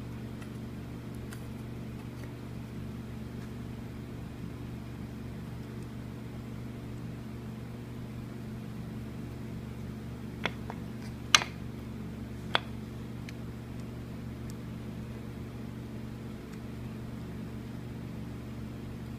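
Steady low electrical hum, with three short sharp clicks a little past the middle.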